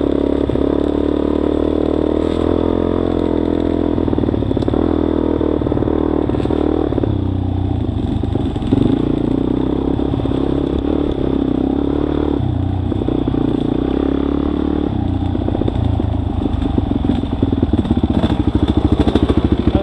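Dirt bike engine running under way, its pitch stepping up and down several times with throttle and gear changes, with clatter from the bike over rough ground. Near the end the engine drops to a slow, pulsing low-revving run as the bike slows.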